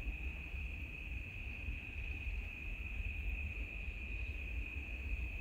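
A continuous, unbroken high-pitched insect trill, holding one pitch, with a low rumble underneath.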